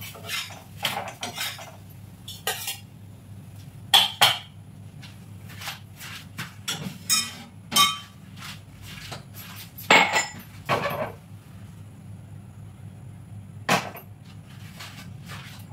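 Steel kitchenware clinking and clattering: tongs, a flat iron griddle and a steel plate knocked together as flatbreads are lifted off the griddle and stacked on the plate, in a string of separate sharp clinks, a few louder than the rest.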